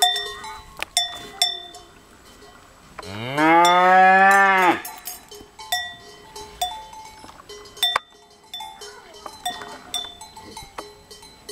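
A cow moos once, one long call about three seconds in that starts low, rises and then holds. Around it, a cowbell clinks irregularly as the cattle move.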